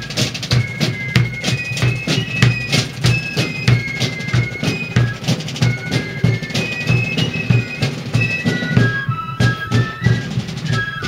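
Fifes and drums playing a tune: a shrill fife melody of held high notes over steady, rapid drum strokes.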